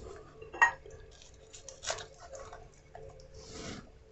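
Scattered light clicks and taps of a knife and hands against a metal roasting pan as a roast chicken is pulled apart and cut, with a faint sound of the meat tearing.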